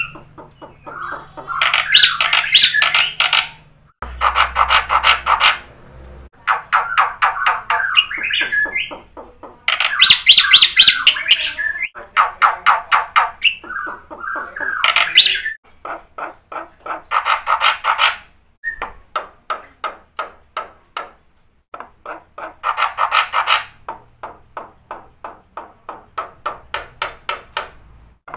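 Black-winged starling (jalak putih) singing loudly in long chattering phrases of fast repeated notes. Each phrase lasts about one to two seconds, with short pauses between them. The song is full of mimicked phrases.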